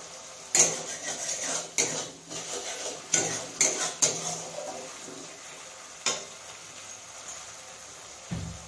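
A spatula stirring and scraping masala in a metal kadai, with sharp metal-on-metal clinks and clatter, over a steady sizzle of frying spices. The clatter is busiest through the first four seconds; two lone clinks follow later.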